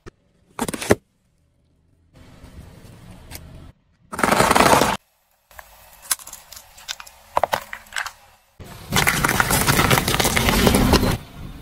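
A car tyre crushing a series of objects on pavement, in separate bouts: a short crunch about a second in, a loud crunch about four seconds in, and scattered sharp cracks and pops around six to eight seconds. From about nine seconds there is a long, loud crushing as the tyre rolls over thick aloe leaves.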